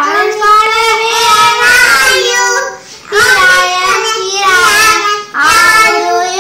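A young child singing in a high voice, in held notes and short phrases with brief breaks about three seconds in and again near the end.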